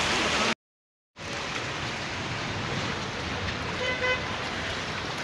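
Steady street noise of traffic on a flooded road, with a car horn giving one short toot about four seconds in. The sound cuts out completely for about half a second near the start.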